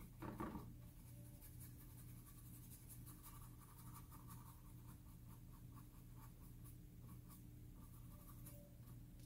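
Faint scratchy strokes of a paintbrush dabbing and scrubbing acrylic paint on canvas board, over a low steady hum.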